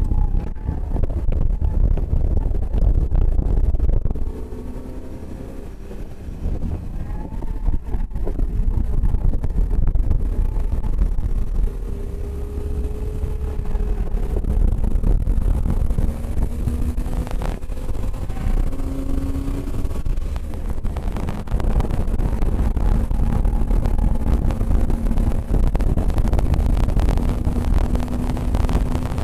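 A car at speed with heavy wind buffeting on the microphone over the engine. The engine eases off a few seconds in, then climbs slowly and steadily in pitch through a long pull down a straight.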